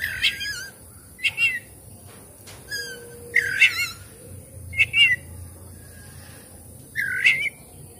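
Oriental magpie-robin singing: six short, wavering whistled phrases about a second apart, with a pause of nearly two seconds before the last.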